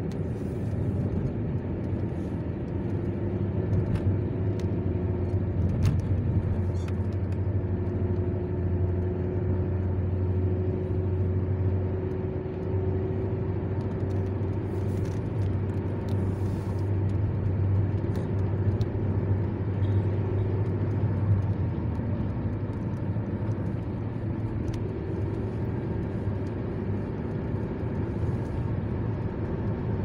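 Car cruising along a highway, heard from inside the cabin: a steady rumble of engine and tyre noise with a low drone that eases off about two-thirds of the way through.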